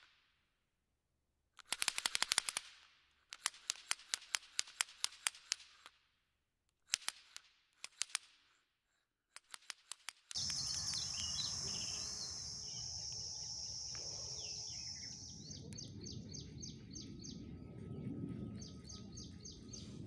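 Four bursts of rapid clicking, like typewriter keys, with silent gaps between them. About ten seconds in, outdoor woodland ambience begins abruptly: a steady high insect-like drone, then high chirps repeating in even runs, bird calls and a low rumble.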